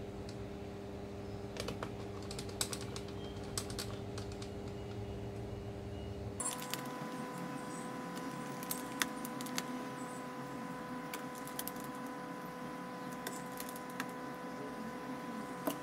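Scattered light clicks and taps of small parts and a screwdriver on a laptop's casing and board during reassembly, over a steady electrical hum that changes abruptly about six seconds in.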